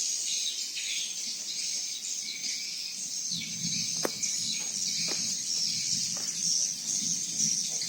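Continuous high-pitched chirping of insects and birds, with a low hum coming in about three seconds in and three faint clicks about a second apart.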